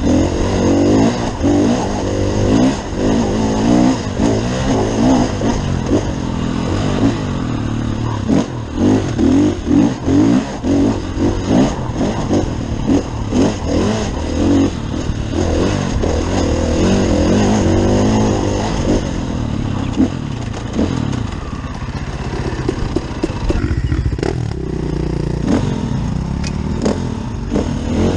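Enduro dirt bike engine under way, revving up and down again and again as the throttle is opened and closed over the trail, with short knocks and rattles. Near the end the engine settles to a steadier, lower note as the bike slows.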